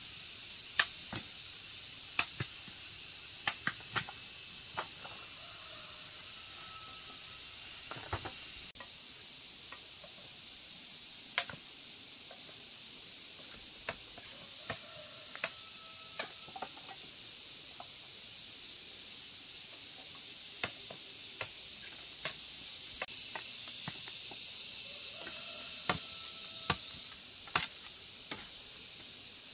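Curved machete chopping sugar cane stalks: scattered sharp knocks, irregular and often a second or two apart, over a steady high hiss.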